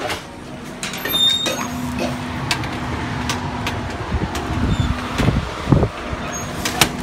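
Handheld phone-microphone sounds of someone walking out of a shop into a parking lot: scattered knocks and clicks over a steady low hum, with low rumbles on the microphone from about four seconds in.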